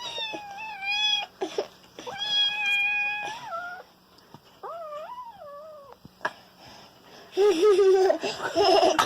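A cat meowing: about four long, drawn-out meows, one of them wavering up and down in pitch.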